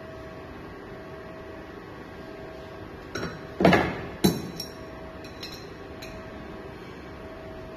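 Metal hand tools clanking against one another and onto the workbench: two loud knocks a little past three seconds in, then a few lighter clinks over the next two seconds.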